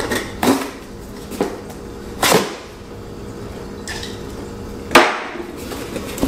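Cardboard box being opened with a small knife: a handful of short, sharp scrapes and rips as the blade slits the packing tape and the flaps are pulled free, the loudest about five seconds in.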